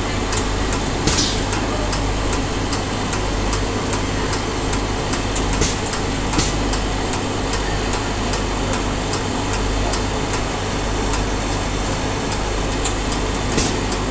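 Slurpee machine (frozen carbonated drink dispenser) running with a steady mechanical hum, with a regular light ticking about two or three times a second.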